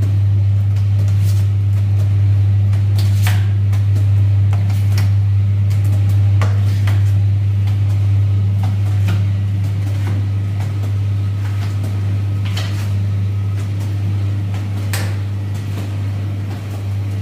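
Sangak bakery at work: a steady low hum, with scattered knocks and clatters of tools.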